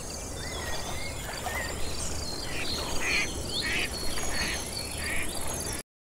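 Outdoor nature ambience: assorted bird calls and chirps, several repeated calls in a row about halfway through, over a steady insect trill. It cuts off suddenly near the end.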